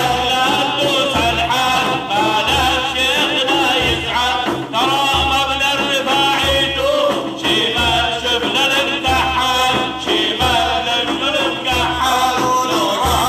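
Arabic devotional praise song (madih): ornamented singing with many pitch bends over instrumental accompaniment and a regular low drum beat.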